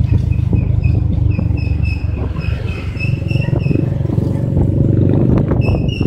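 Motorcycle riding along, its engine mixed with heavy wind rumble on the microphone. A short high chirp repeats about three times a second through the first half and again near the end.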